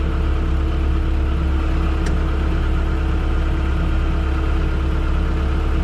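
Engine of heavy equipment running steadily at a constant speed, a low drone that does not rise or fall.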